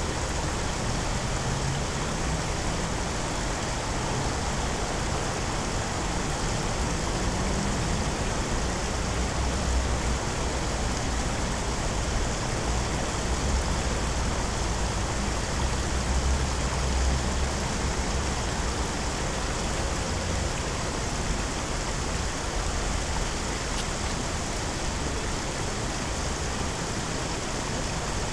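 Steady rushing outdoor noise with a low rumble underneath that swells and fades now and then.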